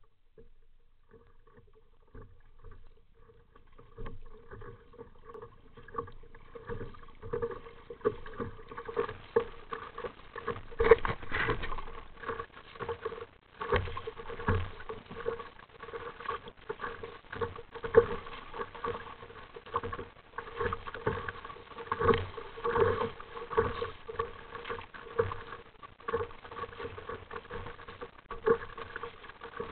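Sea water slapping and splashing against the plastic hull of an RTM Mambo sit-on-top kayak as it is paddled, with irregular knocks against the hull. It is faint for the first few seconds, then the splashes come thick and fast.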